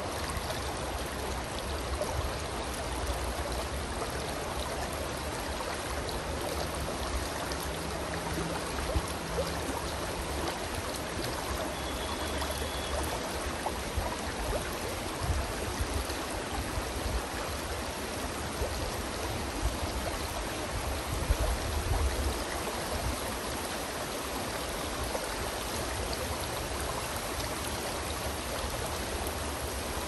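Shallow stream running steadily over rocks and gravel in a riffle. There is a low rumble underneath that swells now and then.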